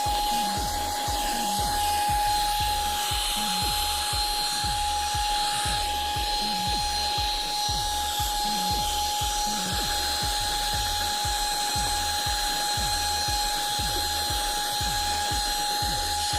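A small handheld cordless vacuum cleaner's motor running steadily, with a constant high-pitched whine and the hiss of air.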